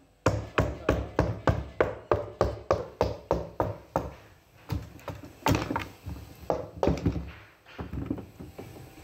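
A wooden stick knocking out a rotten chipboard tabletop from inside an upturned wooden table frame: a run of hollow knocks, about three a second, turning slower and irregular after about four seconds.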